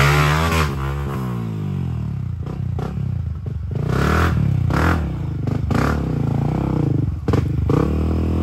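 Off-road motorcycle engine being ridden along a trail, its pitch rising and falling with the throttle, with occasional knocks and rattles.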